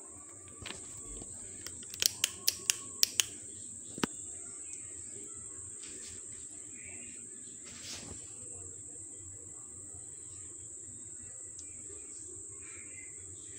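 A quick run of about seven sharp clicks a couple of seconds in, with one more click a moment later, over a steady high-pitched whine.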